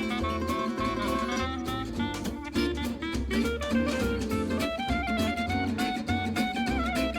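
Background music: upbeat instrumental jazz with guitar and a regular bass beat.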